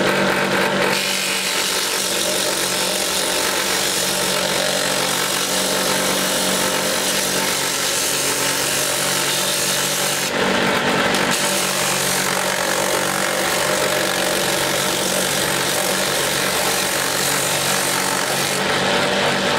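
Old bench drill press running steadily, spinning a wooden sanding drum while a hand-held sanding block is pressed against it: a steady motor hum under the rasp of abrasive on wood. The rasp eases off briefly about ten seconds in and again near the end. The block is smoothing the drum's surface true.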